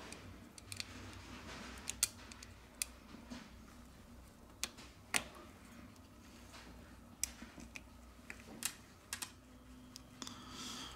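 Scattered small, sharp clicks and taps, about seven distinct ones, from handling a smartphone's parts and small tools during reassembly.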